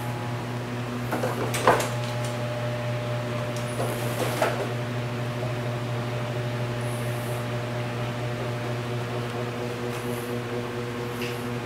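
Steady electrical or mechanical hum from a running appliance, with a few fixed tones in it. Two brief clusters of light clicks and knocks come about one and a half and four and a half seconds in.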